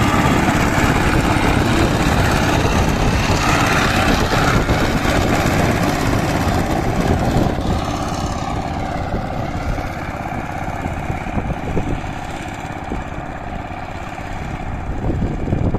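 Single-cylinder diesel engine of a walk-behind power tiller running steadily under load as its rotary blades churn flooded paddy mud, growing fainter over the second half as the tiller moves off.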